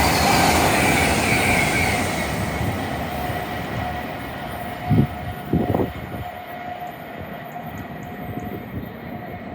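Train passing through the station, its rumble loud at first and then fading away as it moves off, leaving a faint steady tone. Two short low thumps come about five seconds in.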